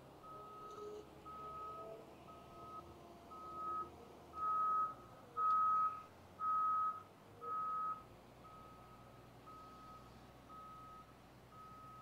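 A vehicle's reversing alarm beeping at about one beep a second, louder in the middle and fainter again toward the end, typical of construction equipment backing up.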